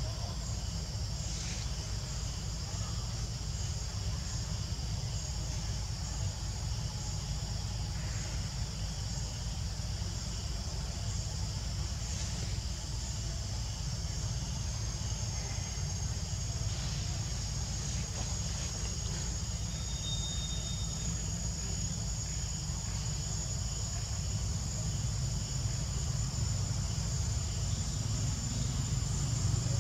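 Steady high-pitched chorus of forest insects, over a constant low rumble that swells slightly near the end.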